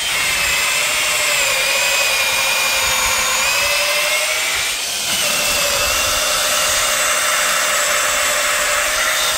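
HOTO 12V brushless drill boring into a timber block with a wood drill bit, its motor whining steadily under load. The sound dips briefly about halfway through, then runs on at a slightly higher pitch.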